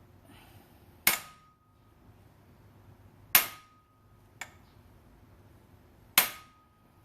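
Click-type torque wrench breaking over three times, each a sharp snap with a brief metallic ring, as cylinder head bolts reach the set 45 N·m; a fainter click comes between the second and third.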